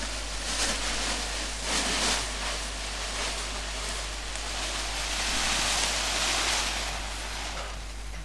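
Wind rushing over the microphone, rising and falling in gusts, loudest around two seconds in and again from about five to seven seconds.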